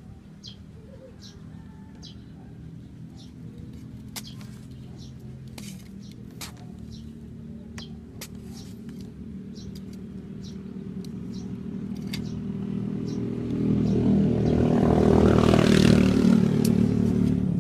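A motor vehicle passing by, growing steadily louder to a peak near the end and then easing off. Small birds chirp throughout, and a few sharp knocks come from a hand trowel digging dry soil.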